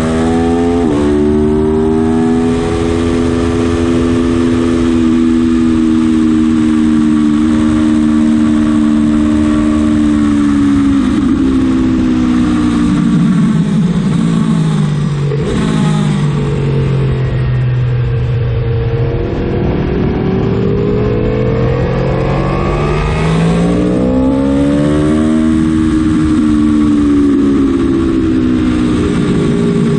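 Aprilia Tuono motorcycle engine at speed on track, heard onboard with wind rush. Its pitch holds steady at first, falls over several seconds as the bike slows for a corner, then climbs again as it accelerates out and levels off.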